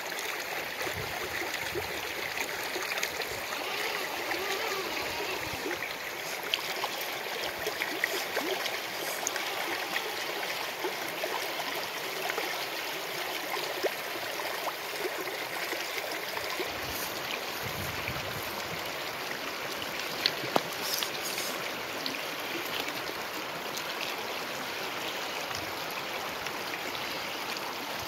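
River water flowing and rushing over stones, a steady shallow-stream sound, with a couple of sharp clicks about two-thirds of the way through.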